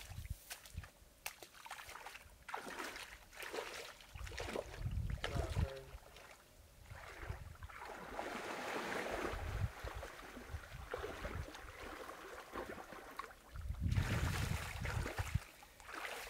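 Lake water splashing and sloshing as a person wades in, swims and wades back out, with scattered splashes and a few low rumbles.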